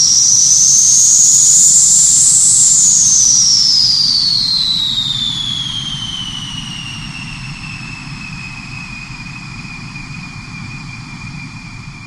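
Jet engine start: a high turbine whine rises to a peak about two and a half seconds in, then falls and settles into a steady lower whine over a steady low rumble, getting quieter.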